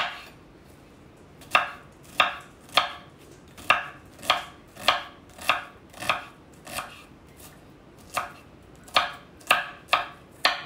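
Kitchen knife chopping an onion into small pieces on a wooden cutting board: sharp knocks of the blade on the board, a single cut, a pause, then steady chops about every half second, a brief break past the middle, and quicker chops near the end.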